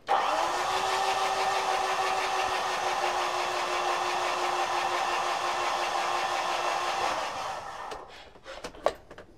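Starter motor cranking the Mitsubishi Fuso FG's 4P10 four-cylinder diesel engine steadily. The injectors are out and the bores are open, so the engine turns over without firing. It stops about seven and a half seconds in, followed by a couple of sharp clicks.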